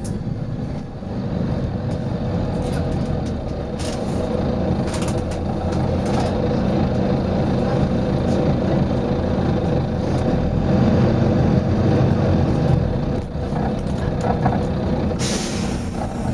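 Volvo B9TL bus's diesel engine running, swelling in level midway through, with a few light clicks, then a sharp burst of compressed-air hiss from its air system lasting about a second near the end.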